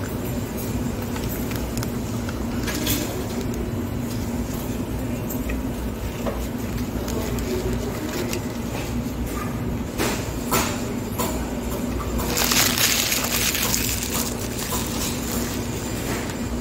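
Paper food wrapper crinkling and rustling as it is handled, with a few sharp crackles about ten seconds in and a louder rustle for a couple of seconds after that, over a steady background hum.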